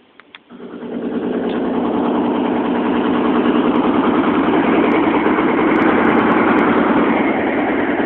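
Jackhammer starting up about half a second in, then running as a loud, rapid, steady hammering rattle.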